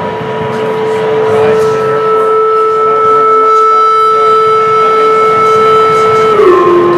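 Loud sustained electronic drone from amplifiers and echo/delay units: a steady held tone with a weaker higher tone above it over a hissing noise bed. Both tones slide down in pitch together near the end.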